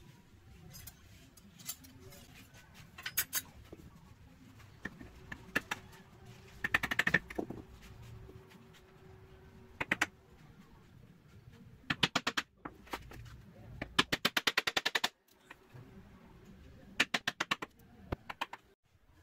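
Wood chisel cutting a recess into a wooden board, heard as short runs of rapid sharp taps, about a dozen a second, in several bursts.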